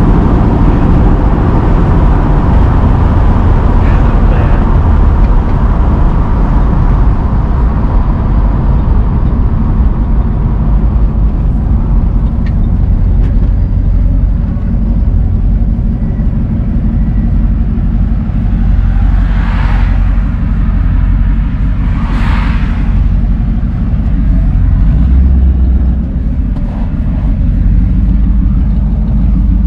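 Carbureted 1965 Ford Mustang Fastback's engine and exhaust heard from inside the cabin while driving, a steady low drone. About two-thirds of the way through come two brief whooshes a couple of seconds apart.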